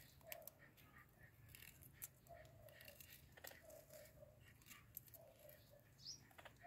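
Faint clicking and crunching of a blue-and-gold macaw's beak biting and tearing into a green mango, with a few short, faint tones in the background.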